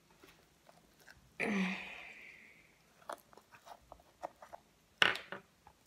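Small sticky clicks and crackles from foam-covered hands handling a plastic glue bottle over a bowl of shaving-foam slime, with a longer hissing squelch about a second and a half in and one sharp click about five seconds in.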